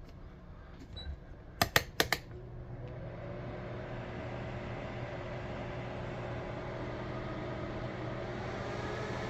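A few quick button clicks, then a fan-driven electric heating appliance starts up: its fan spins up with a rising whine and settles into a steady hum that slowly grows louder.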